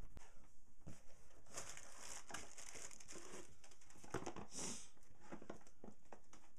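Plastic packing material crinkling and rustling as a boxed product is pulled out of a cardboard shipping carton, with a couple of light knocks in the first second.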